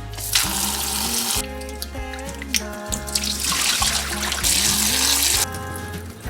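Water running from a tap in two spells, a short one about half a second in and a longer one of about two to three seconds in the second half, over background music with a gliding melody.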